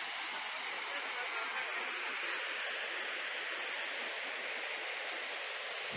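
Small waterfall pouring steadily: an even rush of falling water.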